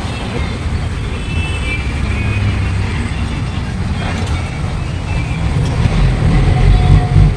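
Street traffic noise: a steady low rumble of passing vehicles that swells louder near the end.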